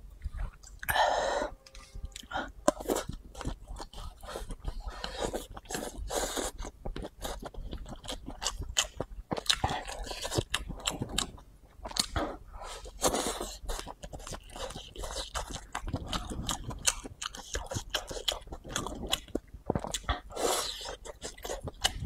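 Close-miked chewing of mouthfuls of rice noodles and rice: a dense, irregular run of wet smacks and crunchy clicks, with a louder burst about a second in.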